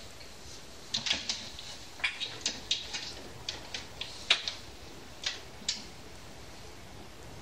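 About a dozen short, sharp clicks and knocks from a player sitting down and settling hands and feet into place at an electronic organ, coming between about one and six seconds in over a faint steady hiss.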